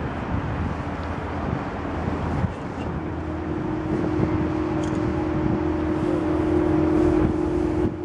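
Aeolus acoustic wind pavilion, its steel tubes humming in the wind: a steady low drone that comes in strongly about three seconds in and holds, over a constant rush of background noise.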